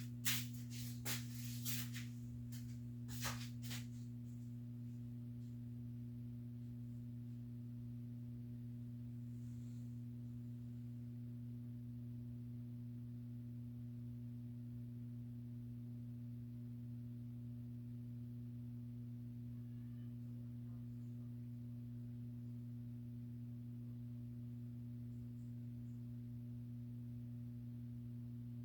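A steady low hum at an unchanging pitch, with a few clicks and knocks of handling in the first four seconds.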